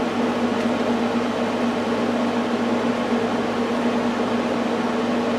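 Steady machine hum with a constant low buzz over an even hiss.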